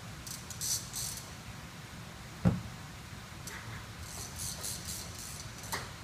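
Ceiling-mounted retractable cord reel drawing up a power pendant outlet box, with short bursts of rattly, ratchet-like clicking from the reel and cord. A single sharp thump about two and a half seconds in is the loudest sound, over a steady low hum.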